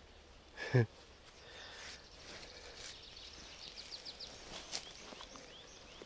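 Small birds singing faintly, a run of quick high chirps and trills, over a few soft rustles of steps on the forest floor; a brief grunt-like vocal sound from a man less than a second in.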